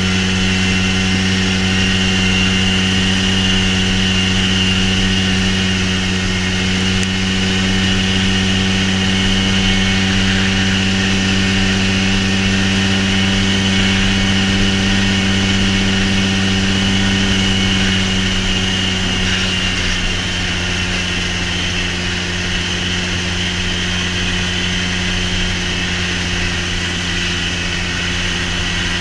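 A vehicle engine running steadily at constant speed, with a low hum and a steady high whine above it, easing off slightly about two-thirds of the way through.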